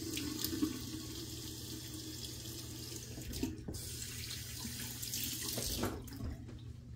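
Bathroom sink tap running steadily into the basin while a freshly shaved face is rinsed over it; the flow of water eases off about six seconds in.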